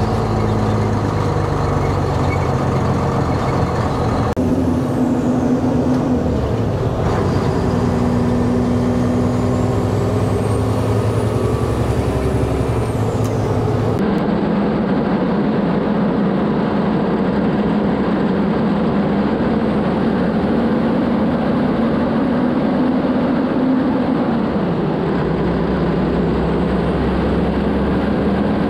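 Mack truck's diesel engine running under load as the truck drives along, its pitch shifting a few times.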